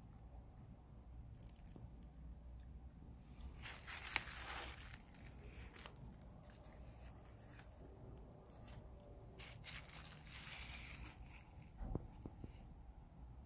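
Clear plastic film wrapped around potted geraniums crinkling as a hand handles the pots, in two spells a few seconds apart, with a light knock near the end.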